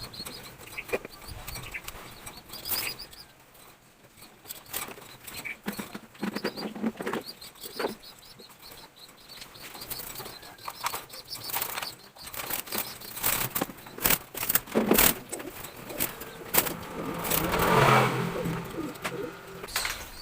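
Engine oil being poured from a bottle into an engine's filler neck, with irregular clicks and knocks of the plastic bottle and cap being handled and a longer rushing pour near the end.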